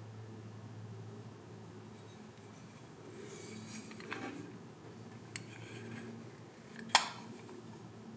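Handling noise from a WW2-era safety razor blade sharpener's metal case: soft rubbing and small clicks, then one sharp click about seven seconds in as the hinged lid is shut. A low steady hum runs underneath.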